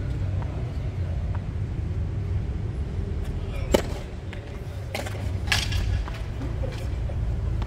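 Tennis racket strings striking a ball with one sharp pop about halfway through, followed a second or two later by fainter knocks as the ball is returned and bounces on the hard court, over a steady low rumble.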